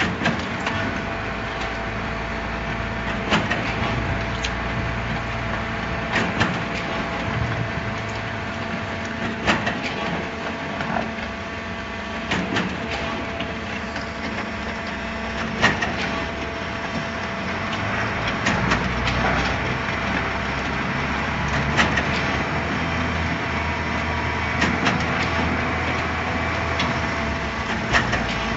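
Vertical concrete mixer pump running steadily, a machine hum with a whine, broken by frequent irregular knocks and clanks.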